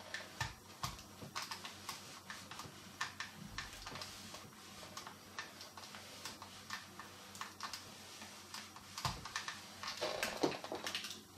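Light, irregular clicks and rustling from a clothes iron being pressed and worked along the bent edge of a cardboard action-figure backcard with its plastic blister, as the card is handled. A louder flurry of handling noise comes near the end.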